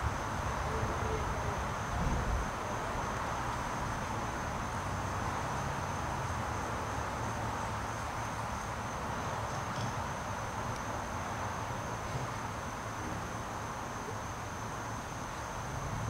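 Steady outdoor summer ambience: insects droning with a thin, continuous high tone, over a low rumble. A soft low thump about two seconds in.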